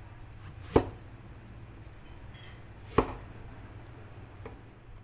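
A knife chopping on a cutting board: two sharp chops about two seconds apart, over a steady low hum.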